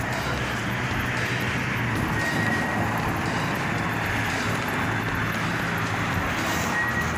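Steady city street traffic noise from cars driving and idling along the road.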